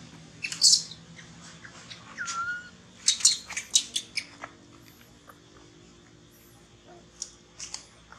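Baby long-tailed macaque giving short, high-pitched squeals and screeches in scattered bunches, thickest about three to four seconds in. These are an infant's distress cries at being weaned and refused its mother's milk.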